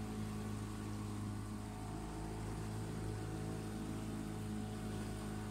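A boat engine running at a steady speed, giving an even, unchanging drone.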